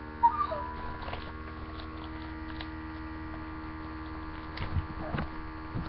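Steady electrical hum picked up by a laptop's built-in microphone, with a sharp click about a quarter second in and a few faint knocks near the end.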